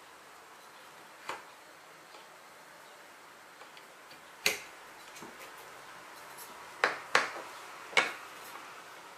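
Sharp, separate knocks and clicks of a Zempire Kitpac spike table's legs and metal fittings against its wooden tabletop: a single knock, a loud one about four and a half seconds in, a quick pair near seven seconds, and another loud one near eight seconds as a leg is set into its metal mount.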